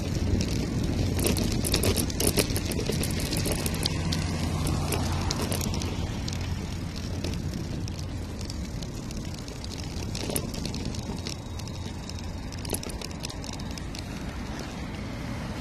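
Bicycle ridden along a paved path, heard from a handlebar-mounted camera: steady tyre and wind noise with a low hum of road traffic, and a run of small clicks and rattles over the first few seconds.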